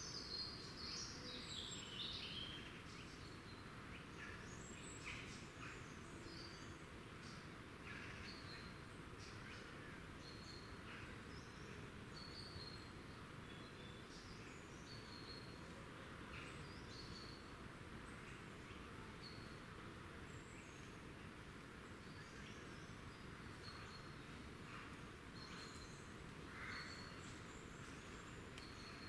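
Quiet woodland ambience with small birds calling: many short, high chirps scattered throughout over a steady low background hiss, and a louder call falling in pitch in the first couple of seconds.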